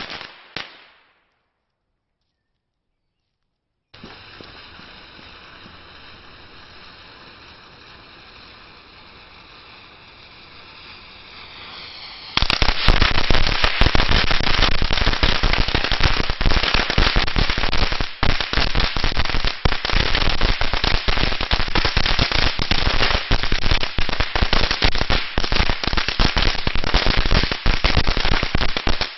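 Blackboxx Rapiator firecracker chain: a string of bangs ends about a second in. After a gap and a quieter steady hiss, a second chain goes off about twelve seconds in, with a loud, dense, rapid string of sharp bangs that does not let up.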